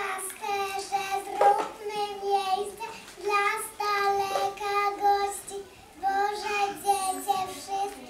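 A group of young children singing together in unison, in held sung phrases with short breaks about three and six seconds in.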